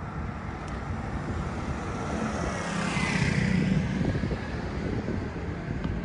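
Motor scooter engine approaching, growing louder to a peak about halfway through and then easing a little, with wind buffeting the microphone.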